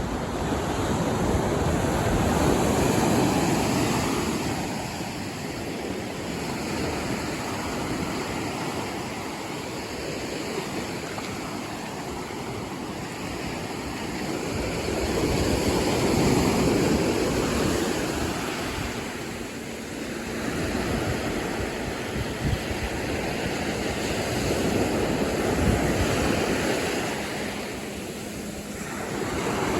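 Ocean surf breaking on a beach, a steady wash of waves that swells and eases in slow surges, loudest about three seconds in, again around sixteen seconds, and near the end.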